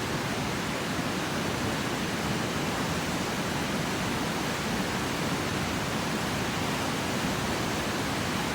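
Steady rushing of flowing water, an even hiss-and-rumble with no change through the stretch.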